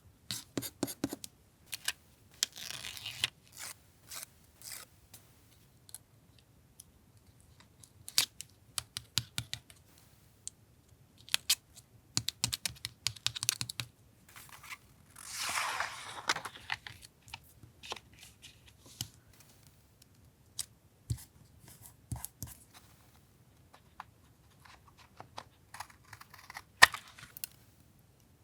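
Paper-crafting handling sounds: scattered taps, clicks and paper rustles, with a longer rustling sweep about fifteen seconds in and a sharp tap near the end, the loudest sound.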